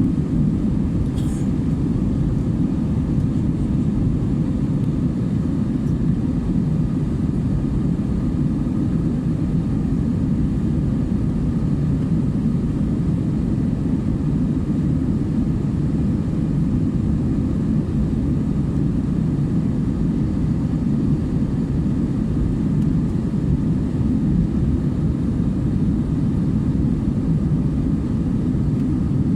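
Steady airliner cabin noise in flight: a constant low rumble of the engines and rushing air, heard from inside the cabin.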